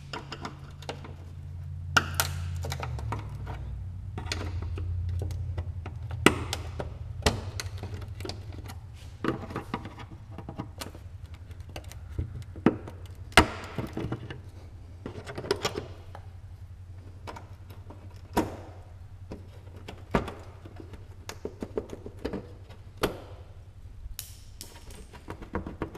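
Plastic push-pin clips being pried out of a Scion FR-S's underbody panel with two screwdrivers: scattered sharp clicks, snaps and knocks over a steady low hum.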